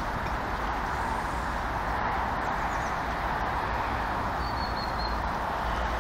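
Steady rushing outdoor noise, with a low rumble typical of wind on the microphone. A faint short high chirp comes about four and a half seconds in.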